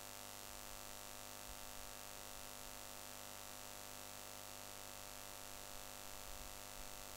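Steady electrical hum with hiss, unchanging: the background noise of the recording, with no other sound.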